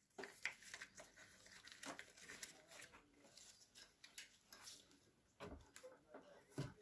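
Near silence with faint, scattered small clicks and rustles of hands working on motorcycle wiring, joining and taping wires.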